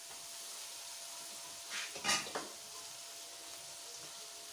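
Chicken pieces with onion and capsicum sizzling steadily in a metal wok over a gas flame. A spoon scrapes and knocks against the pan a couple of times about two seconds in.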